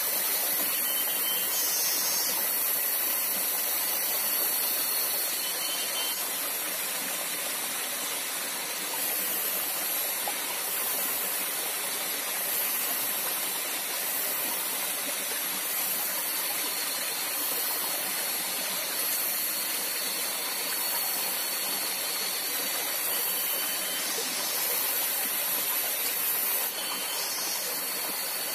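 Small forest stream running steadily over rocks, with a few short high chirps now and then.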